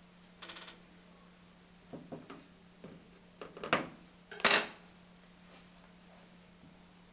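Light metallic clinks and taps of a gilder's knife. There is a short rattle near the start, a few light taps, then a sharp clack with a brief ring about four and a half seconds in, as the knife is set down on the table.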